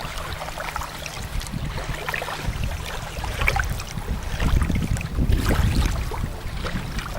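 Wind buffeting the microphone in a low rumble, with faint scattered crackles and small splashes of water.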